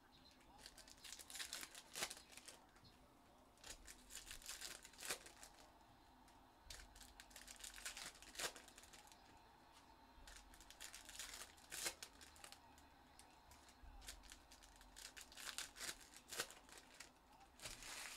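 Trading-card pack wrappers being torn open and crinkled by hand, in short crackling bursts with sharp clicks every few seconds.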